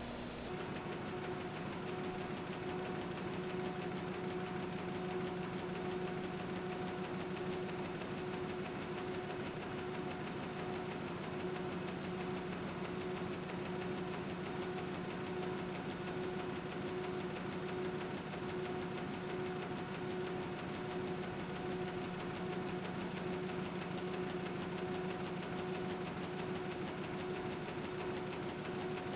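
Newspaper web printing press running: a steady machine noise with a constant hum.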